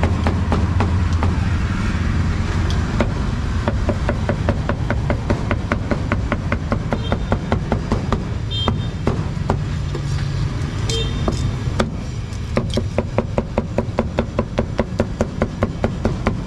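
Heavy meat cleaver chopping grilled meat on a thick round wooden chopping block: a fast run of sharp knocks, about three to four a second, quickest near the end. A steady low rumble of street traffic runs underneath.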